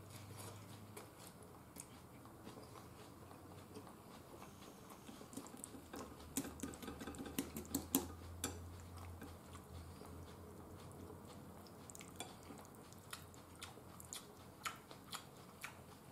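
A person chewing food quietly, with light clicks of chopsticks against a rice bowl. The clicks bunch together and grow louder about six to eight seconds in.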